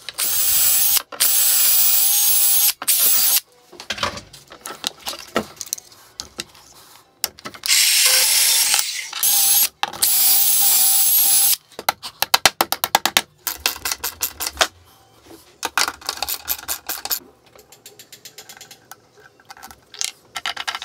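Cordless drill/driver running in two long bursts with a steady whine, working into an aluminium plate on a plywood press top. Later come runs of rapid, even clicking and lighter handling of metal parts.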